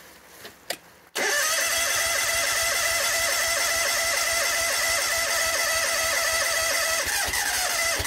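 Honda GX630 V-twin petrol engine of a pressure washer starting, with a sudden start about a second in and then running steadily, with a brief dip in pitch near the end. It is being tried after a new fuel hose was fitted.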